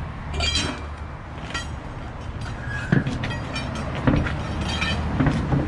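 Metal clanks and knocks as a heavy truck wheel is fitted onto its hub and studs, several sharp hits over a few seconds. A steady low rumble of machinery runs underneath.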